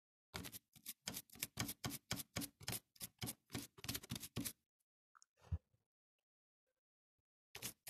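Rapid, even scraping strokes, about five a second for some four seconds, as a hand rubs a small orange object quickly against the exposed gear mechanism of a Łucznik 834 sewing machine. A single dull knock follows about a second later.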